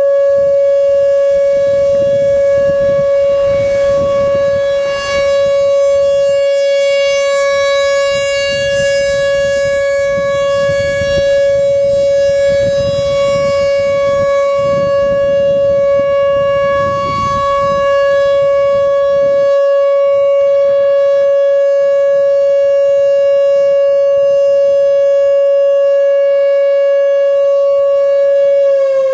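Whelen Vortex R4 outdoor warning siren sounding the steady Alert signal: one loud, unwavering tone with many overtones. It begins to drop in pitch right at the end as the siren winds down. A low rumble runs under it for the first twenty seconds or so.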